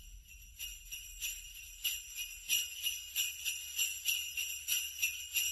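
Jingle bells shaken in a steady rhythm, about three shakes a second, their bright metallic ringing running on without a break.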